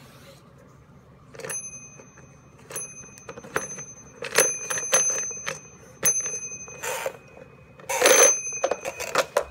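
Bell inside a Fisher-Price Chatter Telephone toy ringing as its plastic rotary dial is turned: repeated short dings at irregular spacing, mixed with plastic clatter and rustling. A loud burst of handling noise comes about eight seconds in.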